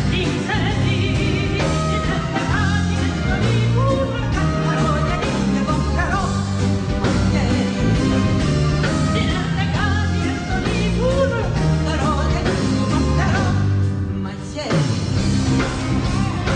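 A woman singing live with a band behind her: electric guitar, bass and drums under a bending vocal melody. The music drops out briefly about fourteen seconds in, then comes back in.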